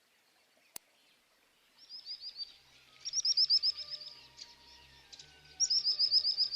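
A small songbird singing three quick trills of short, falling notes, the second and third loud, over soft background music that comes in partway through. A single sharp click a little under a second in.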